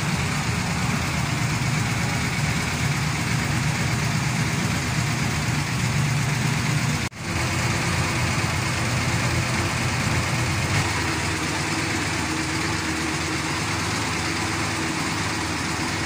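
A 1940 Dodge 3-ton truck's flathead six-cylinder engine ticking over at idle with a steady rumble. The sound drops out for an instant about seven seconds in, then carries on.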